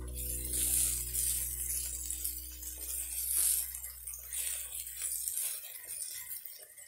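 Stir-frying: a spatula tossing and scraping diced potato, carrot and edamame in a nonstick wok, with a sizzle and light clinks that surge about a second in and again around three and a half seconds. A low background music note fades out about five seconds in.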